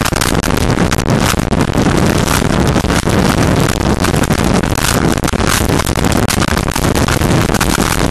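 Motorcycle riding at speed on a wet road: a steady rush of wind buffeting the camera's microphone, fluttering constantly, over road and tyre noise.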